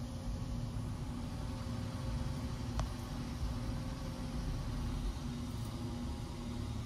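A steady low mechanical hum, with one sharp click about three seconds in.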